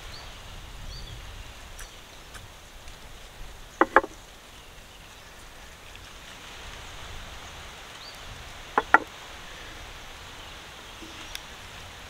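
Two quick double knocks about five seconds apart, clay on clay or wood, as small terracotta bowls are emptied into a clay pot and set down, over a steady outdoor hiss.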